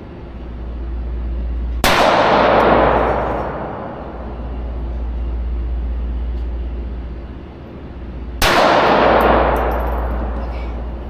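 Two pistol shots about six and a half seconds apart, each with a long ringing decay that fades over about two seconds. A steady low hum runs underneath.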